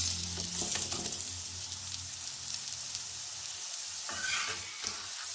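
Stuffed paneer paratha frying in desi ghee on a flat tawa: steady sizzling.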